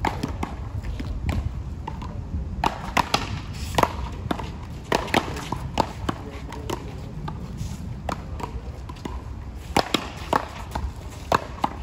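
Sharp knocks at irregular intervals from a rubber paddleball bouncing on concrete and being hit with wooden paddles, over a steady low rumble.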